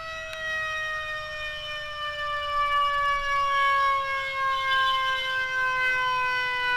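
Emergency vehicle siren sounding one long tone that slowly falls in pitch, with a low rumble underneath.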